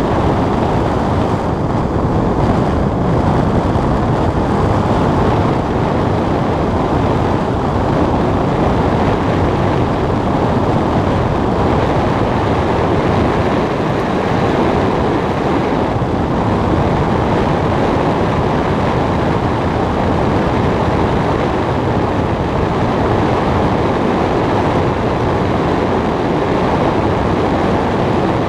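Steady rush of airflow over a glider's canopy in flight, heard from inside the cockpit: an even, unchanging hiss-like rush with no engine tone.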